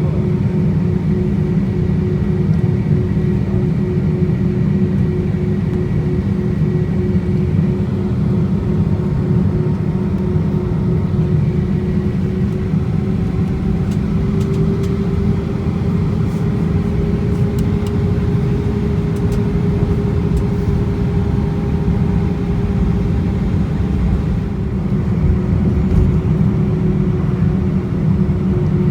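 Engine and airflow noise inside an Airbus A319 cabin: a loud, steady rumble with a humming engine tone that rises slightly about halfway through and settles back near the end.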